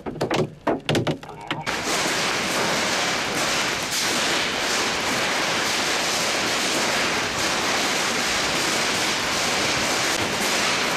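Hail and heavy rain pelting standing water on a hail-covered road: a dense, steady hiss of splashing that starts abruptly about two seconds in.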